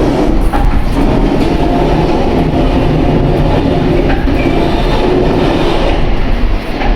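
Inclined elevator car in motion, its running gear making a loud, steady abnormal mechanical noise. The fault noise is heard only when the car travels upward, even though the installation is still new.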